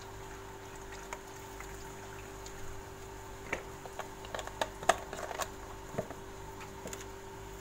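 A scatter of light clicks and clinks of a metal spoon and kitchen utensils against a stainless-steel pot, over a steady faint hum. The clicks fall in the second half.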